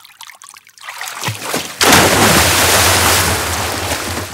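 Layered library splash sound effects for people in a hot tub: scattered small splashes and water movement, then, about two seconds in, one big loud splash that fades slowly.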